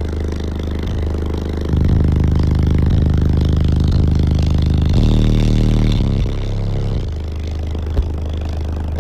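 A wall of nine Resilient Sounds Gold 10-inch car subwoofers, tuned to about 35 Hz, plays deep bass notes at very high power. The notes shift every second or so and get louder from about two seconds in until about six seconds.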